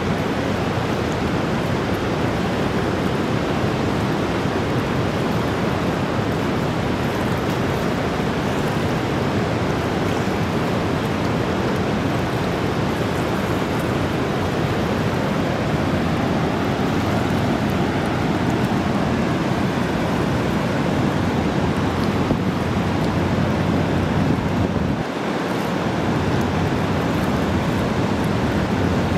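Whitewater rapids of the upper Niagara River rushing steadily, an even, unbroken wash of churning water.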